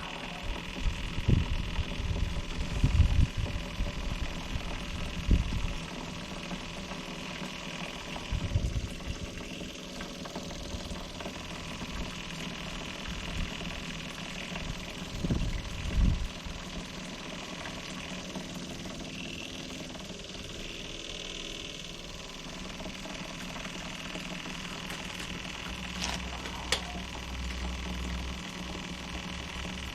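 Electric fuel pump running steadily, pumping fuel out of the scooter's tank. A few dull low thumps come in the first few seconds and again around fifteen seconds in.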